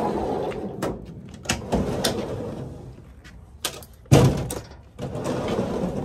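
Clicks and knocks of a cargo van's sliding side door and gear inside it being handled, with a louder thump about four seconds in.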